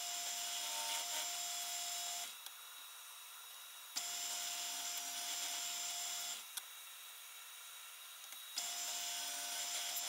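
Drill press with a Forstner bit cutting into plywood in three separate stretches of about two seconds each, with a steady machine hum. Between the stretches there is a quieter hiss.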